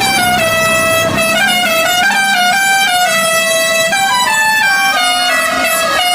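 Bus's Basuri telolet horn, a multi-tone air horn, playing a melody of short held notes that step up and down in pitch every fraction of a second.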